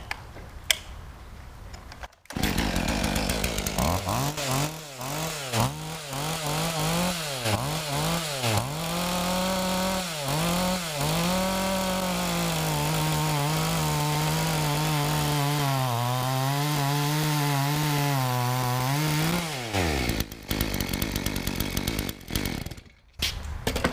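Maruyama 61 cc two-stroke chainsaw with a 20-inch Oregon bar and 3/8 chain, starting at full throttle about two seconds in and cutting through a large log. The engine pitch dips and recovers repeatedly as the chain bites, then holds steadier under load. Near the end it drops off as the cut finishes.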